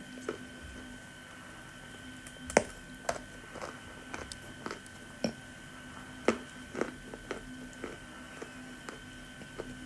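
Wet Yashma clay crunching and squishing close to the microphone in irregular sharp cracks, one or two a second, the loudest about two and a half and six seconds in. A faint steady hum runs underneath.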